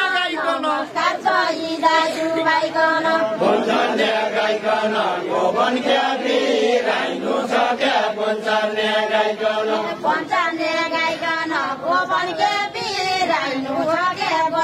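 A group of men singing a Deuda folk song together in chant-like chorus, unaccompanied, the voices holding long steady notes.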